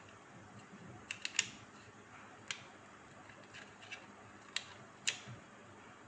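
Small hard-plastic clicks as adapters are pried from and pressed into the slots of a plastic cable storage box: a quick run of three clicks a little after a second in, then single clicks spaced a second or two apart.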